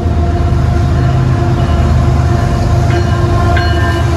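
Train passing close by: a loud steady low rumble with steady humming tones, and faint high-pitched tones that come in about three seconds in.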